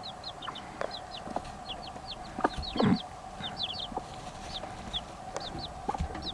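Baby chicks peeping, many short high chirps falling in pitch, several a second, with a bantam hen's lower clucks among them.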